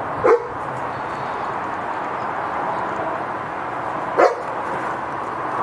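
A German shepherd dog barks twice, single short barks about four seconds apart, over a steady background noise.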